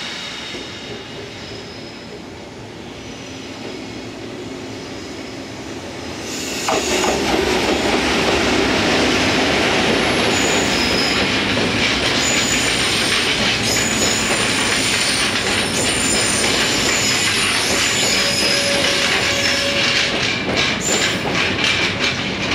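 JNR Class EF65 electric locomotive hauling empty flat wagons past at close range. The train gets much louder about seven seconds in as it draws level, and its wheels squeal intermittently on the rails. Near the end the wheels clack rapidly over the rail joints.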